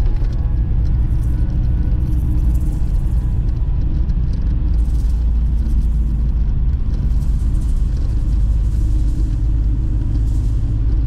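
Steady low rumble of a car driving at road speed, road and engine noise heard inside the cabin.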